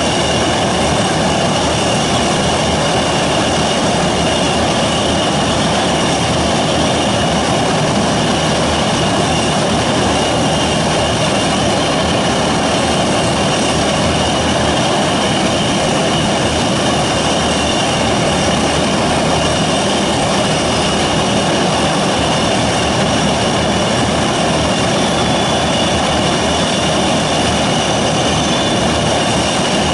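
Four Kuznetsov NK-12MA turboprops of an Antonov An-22 Antei running steadily on the ground, with their contra-rotating propellers turning. They make a loud, even roar with a steady high whine on top.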